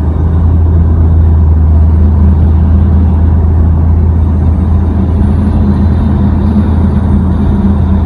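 Steady low rumble of road and wind noise inside a car at about 40 mph, with wind whistling off a bare Rhino-Rack roof rack front crossbar as a thin, wavering tone that comes in faintly about two seconds in.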